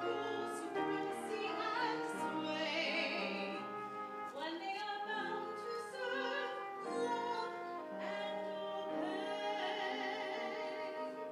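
Live musical-theatre singing with orchestral accompaniment: a solo voice sings long held notes with vibrato over sustained instrumental chords.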